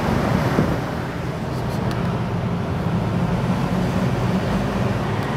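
Mansory-tuned Mercedes G63 AMG 6x6's twin-turbo V8 running steadily while cruising, mixed with tyre and road noise, heard from a car following close behind.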